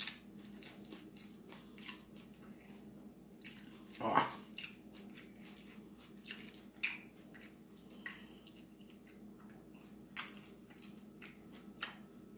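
Fingers squishing and mixing puttu with fish curry on a plate, with faint wet clicks and smacks of eating by hand, and one louder sound about four seconds in, over a faint steady hum.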